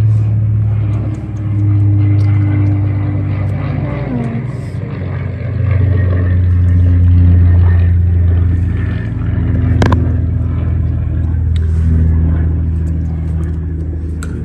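A steady, low engine drone that shifts pitch a few times, with a single sharp click about ten seconds in.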